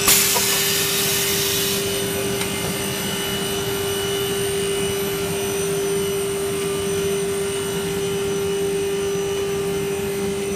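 Running PVC marble-sheet extrusion line: a steady machinery hum with one constant mid-pitched tone over a lower drone. A brief hiss sits over it in the first two seconds.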